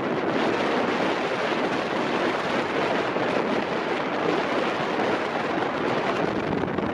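Strong wind buffeting the microphone, a loud, steady rushing noise.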